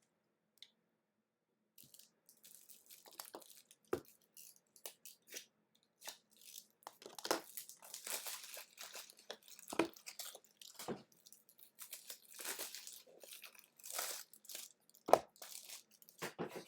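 Trading-card pack wrapper being torn open and handled, with cards rustling and clicking against each other: a run of irregular crackles and rustles, the sharpest snap about fifteen seconds in.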